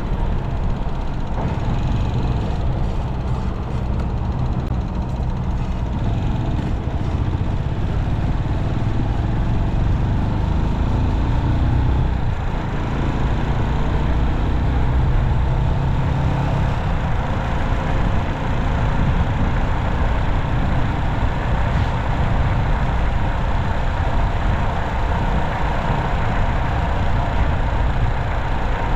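Steady road traffic noise: vehicle engines and tyres on the road. A low engine hum swells for a few seconds around the middle.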